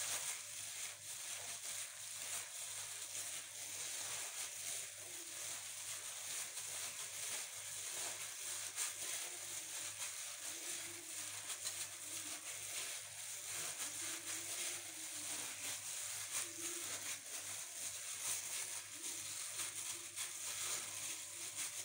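Gloved hands kneading and squeezing raw minced beef mixed with breadcrumbs in a glass bowl: irregular soft squelching of the meat with crinkling of the plastic gloves.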